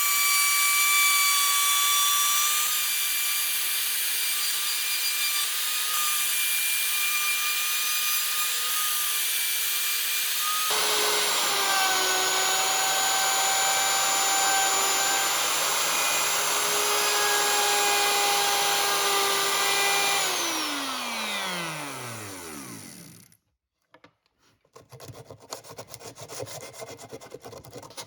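An electric woodworking power tool running steadily with a high whine; about eleven seconds in the sound changes abruptly to another steady motor note, which is switched off near twenty seconds and winds down in falling pitch over about three seconds. After a short quiet, rapid rubbing strokes on wood begin, like sanding.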